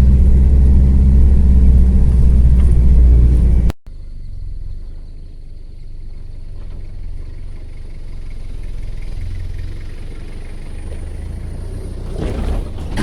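Toyota Hilux engine droning steadily as it drives a rough 4WD track, heard from inside the cab. At about four seconds it cuts abruptly to a much quieter low vehicle rumble, which grows slightly louder near the end.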